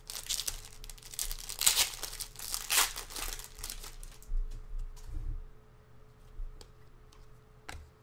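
Foil trading-card pack being torn open, its wrapper crinkling loudly as the cards are pulled out, for about four seconds. After that it is quieter, with a few short taps as the cards are handled.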